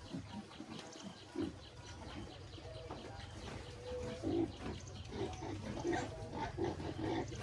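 Pigs grunting in short repeated grunts that come thicker and louder in the second half, over a steady low hum.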